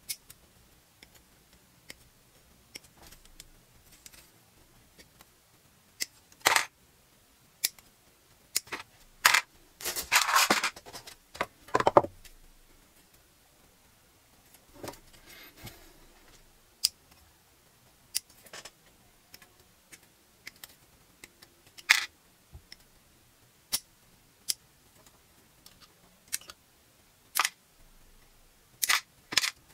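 Hobby nippers snipping parts off plastic model-kit runners: separate sharp clicks every second or two, with a longer clatter of plastic being handled about ten seconds in.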